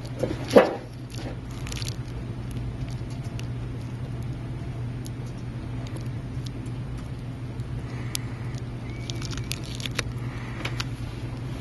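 Faint handling clicks and taps of the IC chip and Kapton tape being pressed and adjusted into alignment on the circuit board, with one louder knock about half a second in, over a steady low electrical hum.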